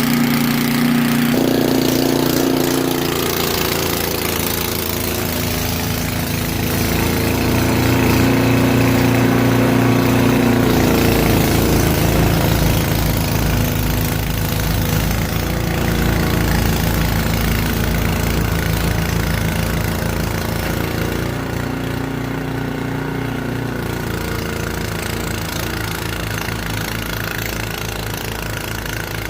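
Gas snowblower engine running steadily just after a cold pull start, its pitch and tone changing a few times.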